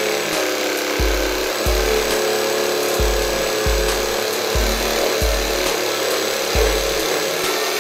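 Jigsaw mounted under a table, running and cutting through a small piece of wood board that is fed across the table by hand.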